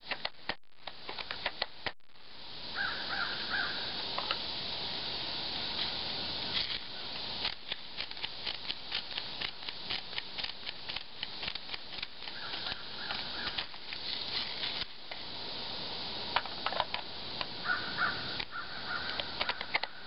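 Outdoor ambience with a bird calling in short repeated bouts, three times, over a steady hiss and scattered clicks and taps.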